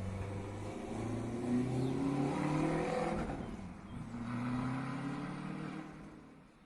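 Car engine accelerating: its pitch climbs, drops about four seconds in, climbs again, then the sound fades away near the end.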